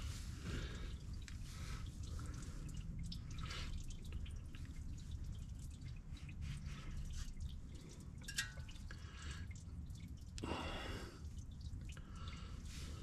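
Motor oil dripping and dribbling into a drain pan, irregular small drips, with a brief louder rush about ten seconds in.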